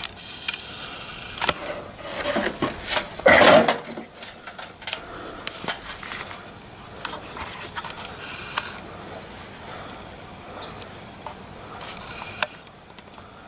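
Handling noise from a gutted microwave oven being moved about: scattered clicks, knocks and rubbing, with one louder half-second rasp about three and a half seconds in.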